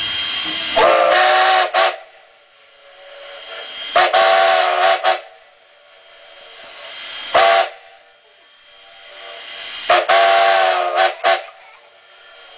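Canadian National 89's steam whistle blowing the grade-crossing signal: two long blasts, one short and a final long one. Each blast sounds several notes at once over a hiss of steam.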